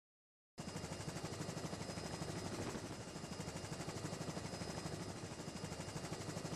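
Helicopter rotor chop, a steady fast pulsing that cuts in about half a second in after a moment of silence.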